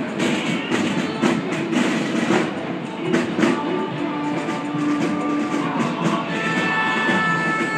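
Music from a street march below, with drum strokes in the first few seconds and long held notes in the second half, over a steady wash of street and crowd noise.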